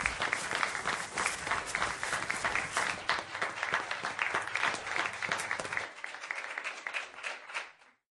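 Canned audience applause, a crowd clapping, that thins out near the end and stops.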